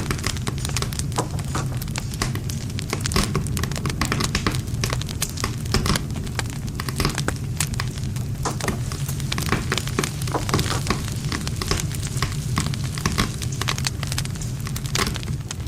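Wood campfire burning steadily: a low rumble of flames under dense, irregular crackling and popping of burning wood.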